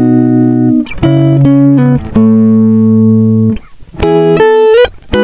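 Music: a slow run of held chords, each starting sharply and changing every second or so.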